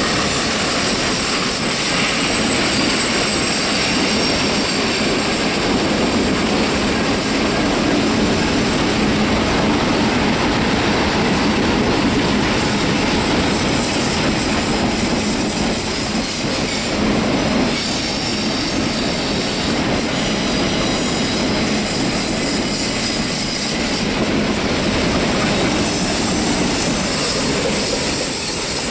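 Triple Crown RoadRailer trailers riding on rail bogies rolling past in a steady stream, the wheels running on the rails with a continuous rumble and clatter, and faint high wheel squeal at times from the tight curve.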